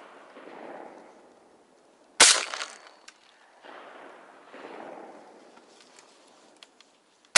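Two shotgun shots: one about two seconds in, each fading out over about half a second, and another at the very end. They are finishing shots at a wounded duck swimming low on the water.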